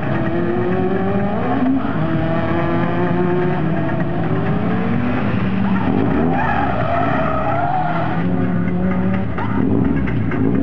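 A car's engine revving hard and changing pitch repeatedly, rising and dropping back with gear changes, as it is driven through a slalom course. Around six to eight seconds in, the tyres squeal as the car slides through a turn.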